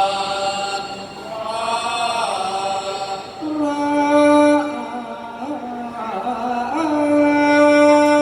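Thai royal barge chant (kap he ruea) sung in long held, wavering notes with accompanying music.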